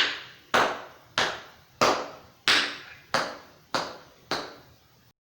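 Tap shoes striking a hard floor in a slow, even beat: about eight sharp taps, a little more than one and a half a second, each with a short ringing tail.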